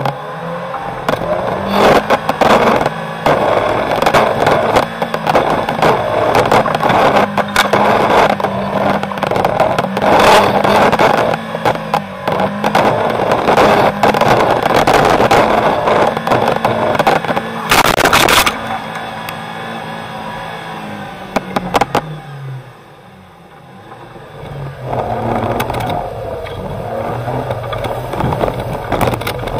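Off-road 4x4's engine running hard while driving through deep snow, with scraping and knocking from snow and the body over the rough track. The engine note drops and eases off a little past twenty seconds in, then builds again.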